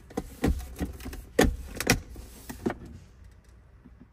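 Plastic clicks and knocks of a 2016 Ram 2500's centre console lid and inner tray being handled and opened. About a dozen sharp clicks come in the first three seconds, the loudest two about half a second apart in the middle.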